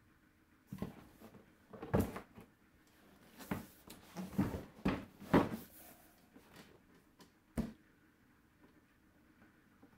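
Cardboard box and packaging being handled and opened: an irregular run of knocks, scrapes and rustles, with a last sharp knock about three-quarters of the way through.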